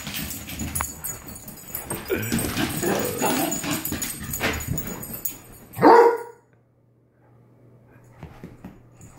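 Dogs romping through a house: paws scrabbling and thudding on a hardwood floor and furniture, mixed with short dog vocal sounds. One loud bark comes just before six seconds in.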